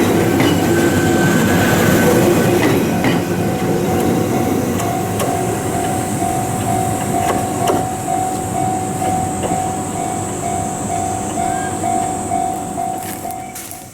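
Ohmi Railway electric train passing over a turnout, wheels clacking over the rail joints and points and fading as it moves away. A steady high whine joins in about five seconds in and runs until the sound cuts off at the end.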